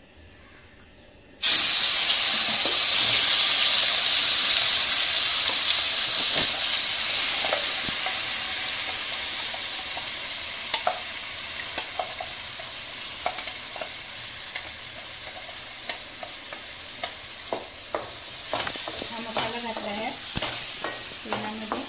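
Wet ground onion-tomato masala paste dropped into hot oil in a metal kadhai: a sudden loud sizzle about a second and a half in, which slowly settles into a gentler frying sizzle. From about ten seconds on, a wooden spatula scrapes and taps against the pan as the paste is stirred.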